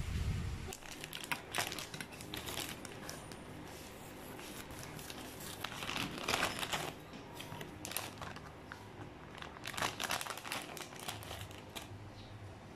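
Plastic mailer bag crinkling and rustling as it is handled and opened, in irregular bursts, loudest about six and ten seconds in.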